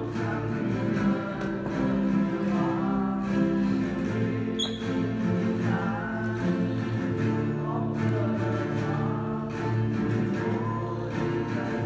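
An ensemble of acoustic guitars playing a tune together, many instruments sounding at once.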